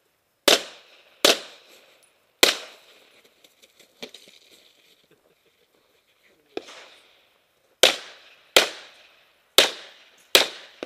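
Handgun shots: three fired in the first two and a half seconds, then a pause of about four seconds, then five more roughly a second apart, each a sharp crack with a short echoing tail.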